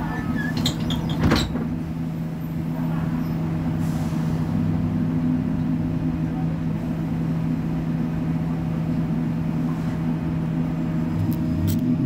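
A bus standing at idle, giving a steady low hum with a constant pitch. A sharp click comes about a second in, and a couple of fainter clicks near the end.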